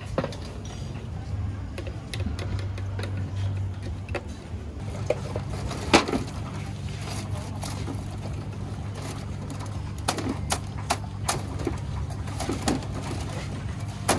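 Young green coconuts in their stalks being hooked with a metal pick and pulled about in a plastic basket: scattered sharp knocks and rustling, the loudest knock about six seconds in, over a steady low hum.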